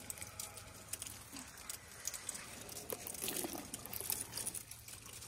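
African elephant chewing thorny branches up close: irregular crackling and crunching of twigs and thorns between the molars, with wet mouth sounds from the saliva that softens the thorns.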